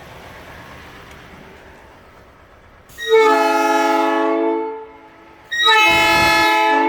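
Aftermarket air-powered train horn blown in two long blasts, the first about three seconds in and the second near the end. Each blast is a chord of several deep, steady tones sounding together, fed from an onboard air tank charged to 100 psi.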